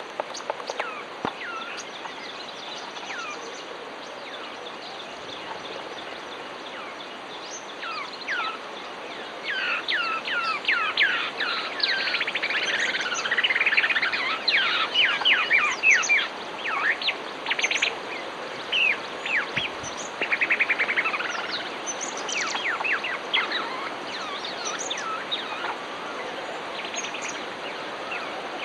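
A flock of common babblers calling together: many short whistled notes sliding in pitch, mixed with rapid trills. The calling is busiest in the middle and thins out towards the end, over a steady background hiss.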